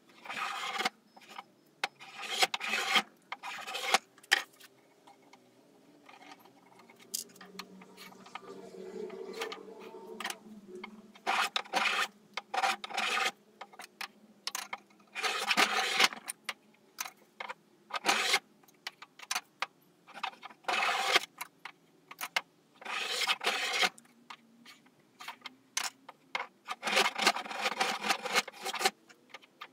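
Hand spokeshave shaving the edge of a wooden canoe frame to a bevel. It cuts in short runs of quick strokes with pauses between them, and a longer pause about a third of the way through.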